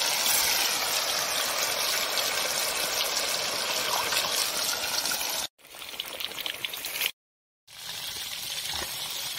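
Steady rushing, splashing water. It cuts off abruptly about five and a half seconds in, comes back quieter, drops out completely for about half a second, then resumes.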